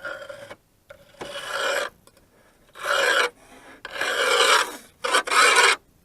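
Dry leaves scraping and crackling as they are pulled out of a tight gap with Leatherman pliers. The sound comes in four separate bursts, each under a second.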